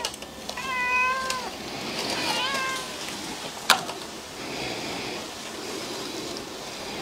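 A cat meows three times in the first three seconds: two even, held calls and a third that rises and falls. About halfway through, a cleaver knocks once, sharply, on a wooden chopping block.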